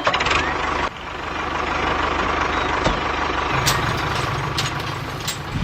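Engine running steadily with a low, rapid chugging; the sound drops out briefly about a second in, then carries on.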